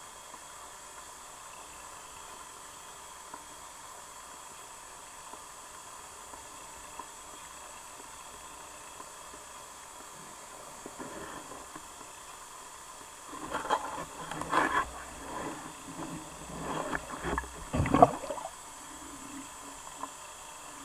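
Underwater sound in a gravel-bed stream: a steady faint hiss, then, about two-thirds of the way in, several seconds of irregular gurgling and knocking water sounds, loudest just before the end of that stretch.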